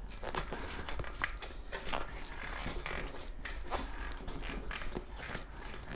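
Rubber bicycle tire bead being worked onto the rim by hand: rubbing and scraping with scattered small creaks and clicks.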